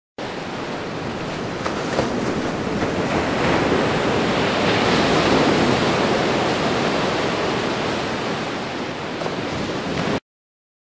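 Gentle ocean waves breaking on a beach: a steady wash of surf that swells toward the middle and eases off again, starting and stopping abruptly.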